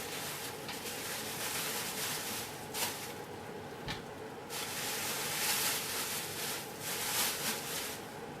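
Rustling and scraping as tissue and dust are pulled off the cyclone shroud of an emptied Dyson DC03 bin, in irregular swells, with a couple of sharp clicks near the middle.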